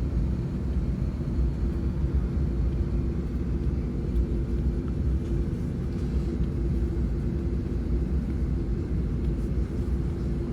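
Airliner cabin noise on the ground before takeoff: a steady low rumble with a constant droning hum.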